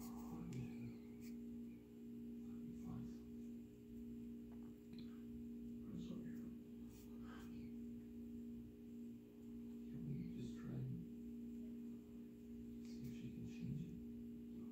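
Faint rustling and small clicks of thin cedar bark strips being wrapped and pulled snug around a Devil's Club drumstick handle, over a steady low hum in the room.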